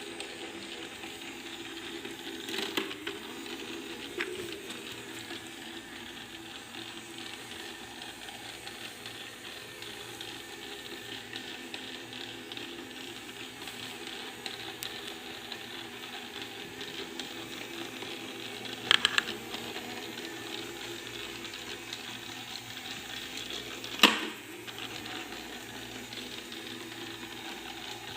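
Robot vacuum cleaner running: a steady mechanical whir of motor and brushes, broken by a few sharp knocks.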